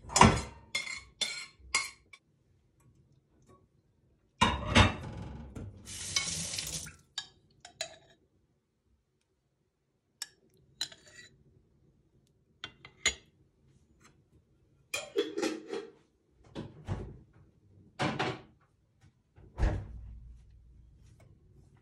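Metal spoon clinking and scraping on a ceramic plate as beans and yogurt are served onto it: a quick run of clinks at the start, a longer spell of scraping about five seconds in, then scattered single clinks.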